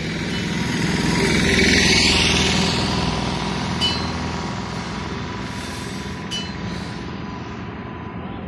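A motor vehicle passing close by on the road, getting louder to a peak about two seconds in and then fading away, over a steady low engine and traffic hum.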